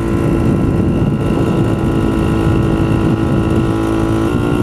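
Engine of a vintage Monark M400 motorcycle running at a steady cruising speed under way, with wind rumble on the microphone. The engine note drops slightly in pitch near the end.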